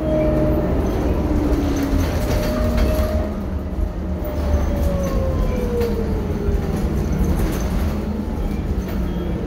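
Inside a 2011 New Flyer DE60LF diesel-electric hybrid articulated bus under way: a steady low rumble with road noise, and a thin whine of the hybrid drive that slowly falls in pitch and fades after about six seconds.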